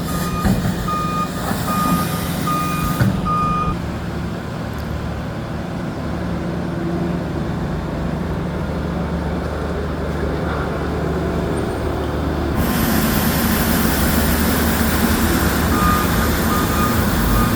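Heavy construction vehicle with a diesel engine running and its reversing alarm beeping at an even pace. The beeping stops a few seconds in. After about twelve seconds a loud hiss rises over the engine, and the beeping returns near the end.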